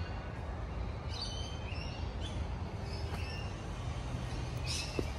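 Birds chirping now and then over a steady low outdoor rumble.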